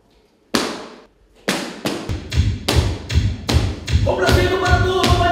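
Two loud, separate stomps of cowboy boots on a stage floor, each echoing in the hall. A fast, steady thumping beat of about three thumps a second then begins, and music with sustained tones joins it near the end.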